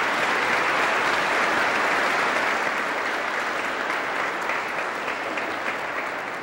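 Audience applauding, a dense steady clapping that eases off toward the end.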